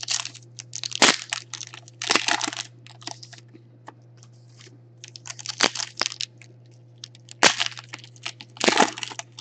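Foil wrapper of a Panini Contenders football card pack crinkling and tearing as it is pulled open by hand, in irregular crackly bursts.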